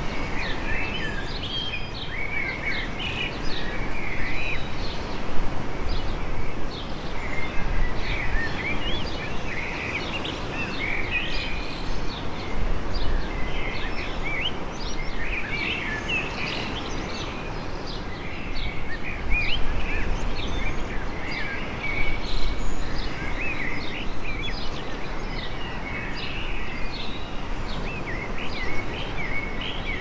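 Small birds chirping and twittering almost without a break, over a steady wash of gentle surf on the beach.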